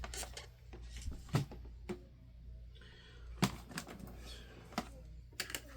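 Handling noise: scattered sharp clicks and light knocks, about a dozen, over a steady low hum.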